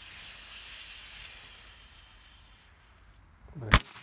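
A lit firework fuse sputtering and hissing for a second or so, then a single loud bang about three and a half seconds in as a firework shoots up from the pickup's bed.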